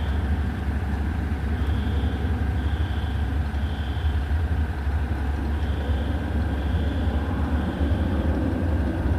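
Heavy diesel vehicle running with a steady low rumble while its reversing alarm beeps about once a second, in runs of three with short pauses between.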